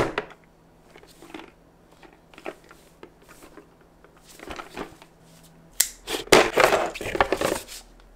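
Unboxing a Nendoroid figure's packaging: a knock as the cardboard box is set down, then scattered taps and rustles as it is handled. About six seconds in comes a burst of loud crinkling and rattling, the clear plastic blister tray and paper insert being pulled out.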